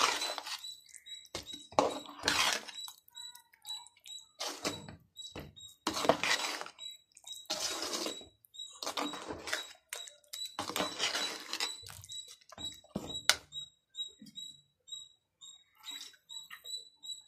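Metal ladle stirring ground coconut paste into a thick chicken curry in a metal pot: uneven scraping and squelching strokes about once every second or so.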